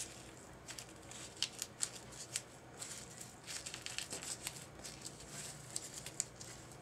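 Thin book-page paper crinkling as punched flower layers are scrunched between the fingertips: a faint, irregular scatter of small crackles and rustles.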